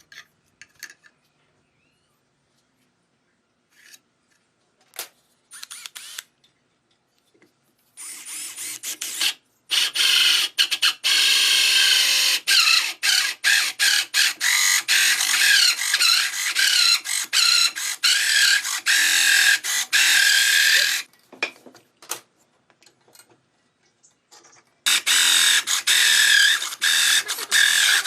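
A power tool cutting wood in two loud stretches, the first long and the second shorter near the end, with a few light clicks and knocks of wood being handled before it.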